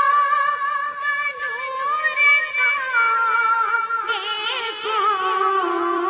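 High-pitched Islamic devotional singing (a naat-style ringtone): one voice holding and bending long, ornamented melodic lines, with no drums or bass beneath it.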